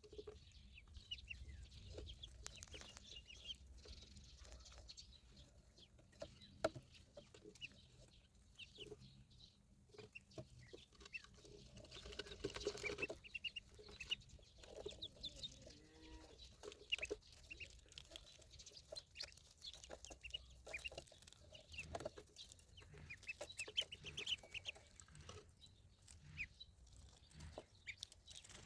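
Ducklings peeping: many short, high calls scattered throughout, faint, with a few soft clicks among them.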